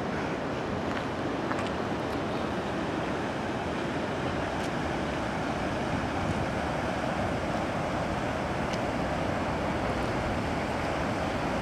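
Floodwater rushing steadily across a road after heavy rain, growing a little louder near the end.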